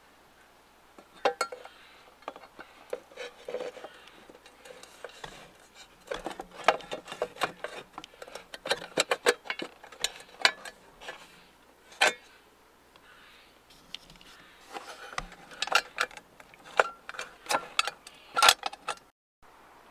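Irregular clicks, taps and clattering of a 1986 Ford Mustang headlight housing being handled and fitted into the front header panel, in several bursts with pauses between; the loudest is a sharp knock near the end.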